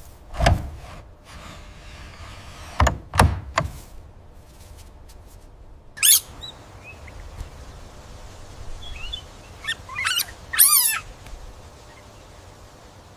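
Four dull thuds in the first few seconds, then a few high, sweeping chirping animal calls, one about halfway through and a short run near the end.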